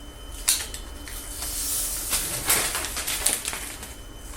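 Adhesive tape being pulled off the roll in several short, rasping pulls, with a click about half a second in.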